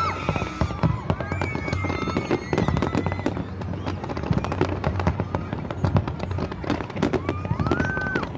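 Fireworks display: dense crackling and popping bursts, with whistling fireworks whose pitch rises and arches over, near the start and again near the end.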